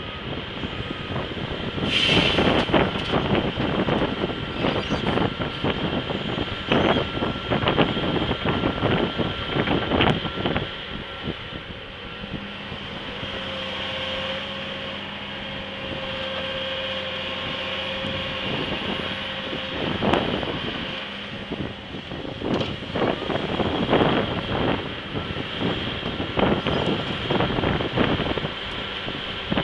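John Deere 450C excavator's diesel engine and hydraulics working through a dig-and-dump cycle, with loose dirt clattering and thudding into a steel dump-truck bed. The knocks come in busy runs at the start and near the end, and there is a steadier running stretch in the middle.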